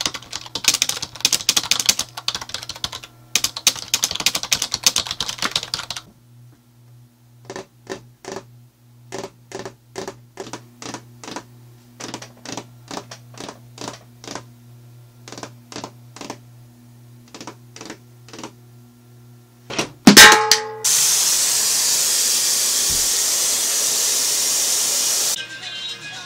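Fast typing on a computer keyboard for about six seconds, then slower single clicks about twice a second over a low steady hum. About twenty seconds in comes a sharp loud clatter, followed by a loud steady hiss lasting about four seconds.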